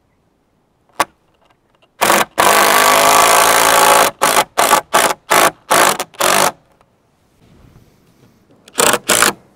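Power drill driving a screw into wood: one run of about two seconds, then about six quick trigger bursts to seat it, and two more short bursts near the end. A sharp click comes about a second in.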